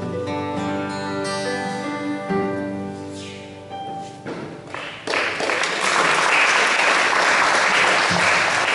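Last chords of a song on acoustic guitar and piano ring out and fade away, then about five seconds in the audience breaks into steady applause.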